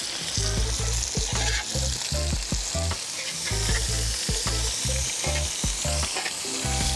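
Potato slices and pork steaks sizzling in oil in a cast-iron sadj pan, with a steady hiss, while a metal spatula and tongs scrape and click against the pan as the potatoes are stirred.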